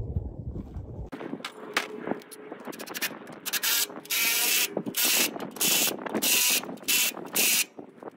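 Cordless impact driver tightening the 2 1/4-inch bolts that hold the press plate on a compressed earth block machine, running in about six short bursts over the second half. Before the bursts come a few scattered metal clicks and knocks from the bolts and tool being handled.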